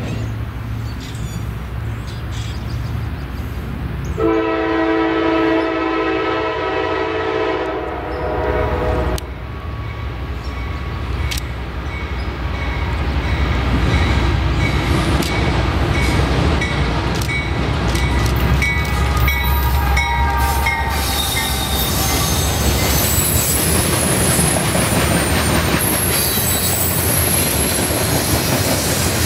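Norfolk Southern freight train: the diesel locomotive sounds one long multi-note horn blast about four seconds in, then passes with a growing engine rumble. Freight cars follow, rolling by with clatter and high-pitched wheel squeal.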